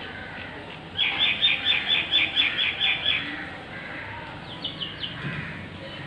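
Lovebird giving a quick run of about ten sharp, high chirps, about four a second, starting about a second in, then a few fainter chirps near the end.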